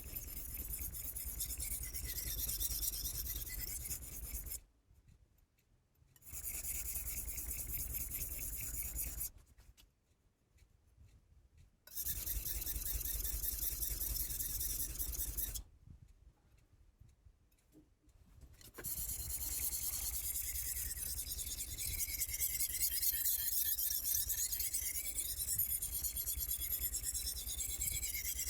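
Kai Shun kitchen knife blade stroked back and forth on the 1000-grit side of a Solicut combination whetstone: a steady scraping in four bouts, with three short pauses between them.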